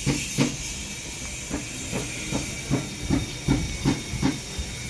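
Regular short knocks, about two and a half a second, over a steady high hiss in a workshop.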